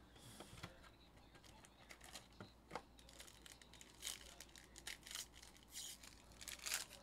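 Foil trading-card pack being torn open and crinkled by hand: a series of short crackling rustles, loudest near the end.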